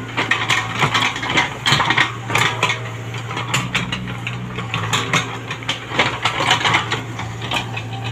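Diesel engine of a Komatsu PC75UU mini excavator running steadily, with many irregular sharp metallic clinks and knocks over it.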